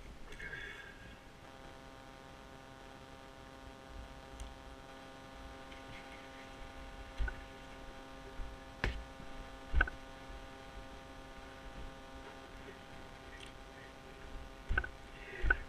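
A steady mechanical hum sets in about a second and a half in, with a few short knocks and clicks from the climber's rope and gear against the pine trunk, several of them near the middle and more near the end.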